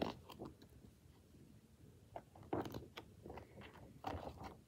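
A picture-book page being turned by hand: a few short, soft paper rustles, mostly in the second half.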